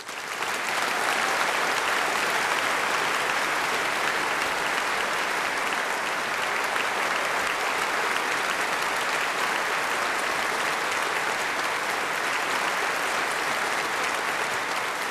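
Concert audience applauding steadily, swelling to full strength within about the first second, in welcome for a performer coming on stage.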